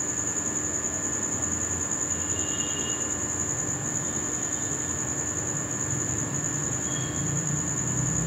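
Crickets trilling without a break, a steady high-pitched ring with a slight pulse, with a low rumble growing in the second half.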